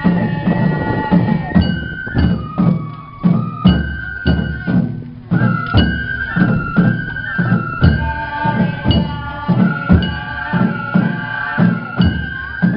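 Japanese festival hayashi music: a high bamboo flute melody, held notes that step in pitch, played over a steady beat of taiko drums and sharp struck percussion.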